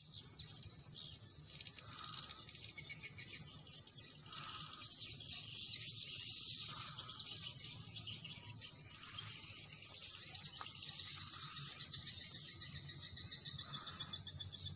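A colony of edible-nest swiftlets chirping continuously in a swiftlet nesting house: a dense mass of high twittering calls, with a fainter lower note repeating about every two seconds.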